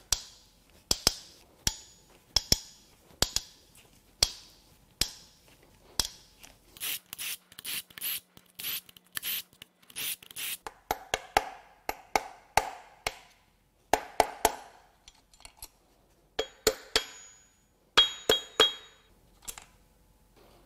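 Hand tools on an engine's connecting-rod cap bolts: a series of sharp metallic clicks and clacks from a ratchet as the bolts are cracked loose and run out, with fast ticking runs in the middle. Near the end, short ringing metal clinks as rod caps and bolts are handled.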